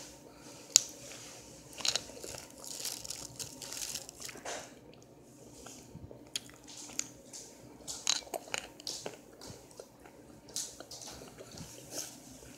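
Chunks of cornstarch being bitten and chewed, with sharp crunches at irregular intervals, the loudest about a second in.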